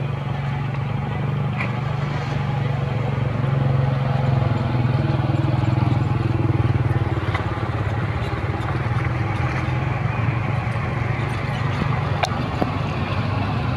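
A motor engine running steadily: a low, even hum that holds throughout.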